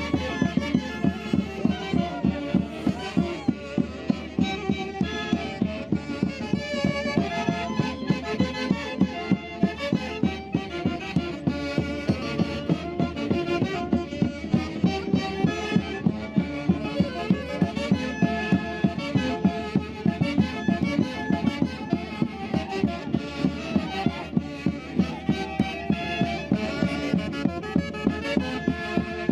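A Peruvian orquesta típica playing festive Santiago music live: several melody instruments together over a steady, strongly accented beat.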